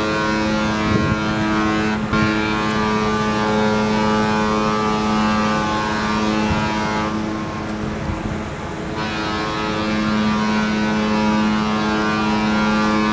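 Cruise ship's horn sounding a long, steady blast at one held pitch, briefly dipping about two seconds in.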